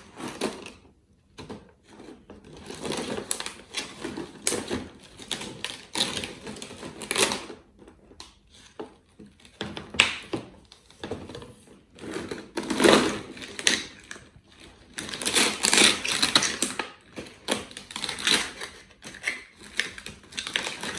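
Thin plastic bottles being handled and pressed together: irregular crinkling, crackling and clicking of plastic, with occasional knocks on the table.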